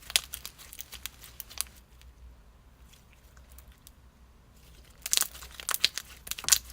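Clear water-jelly slime being squished and pressed by hand, giving quick wet clicks and pops. They come in two bursts with a quiet pause of about three seconds between.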